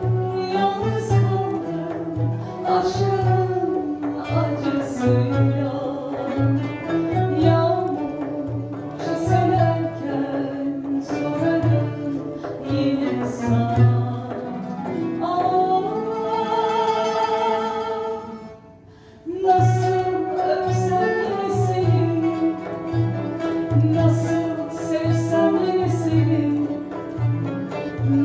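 A woman singing a Turkish ballad over instrumental backing with a steady low bass pulse. About fifteen seconds in she holds one long note, the music drops away briefly, then singing and backing resume.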